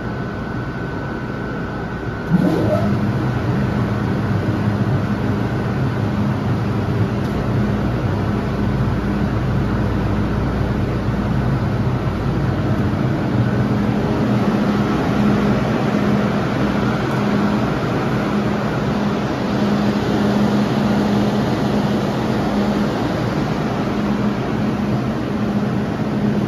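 MTR M-train's onboard machinery: a machine starts up about two seconds in with a short rising whine, then runs on as a steady low hum.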